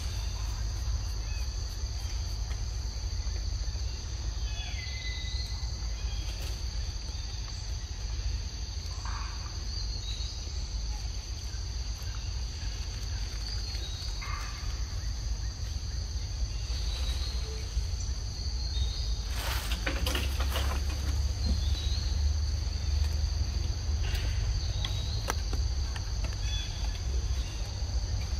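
Steady high-pitched insect chorus holding two even tones over a low rumble, with a few short chirps and a brief rustling burst about twenty seconds in.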